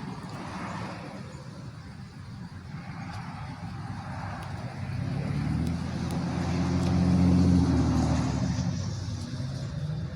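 A motor vehicle drives past: its engine and tyres grow louder from about halfway in, are loudest near the end, then fade away.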